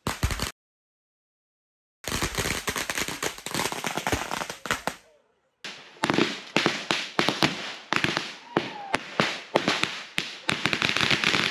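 Consumer fireworks crackling and popping in rapid strings of sharp bangs. The sound cuts out completely for about a second and a half near the start and briefly again about five seconds in, and the crackling grows denser near the end.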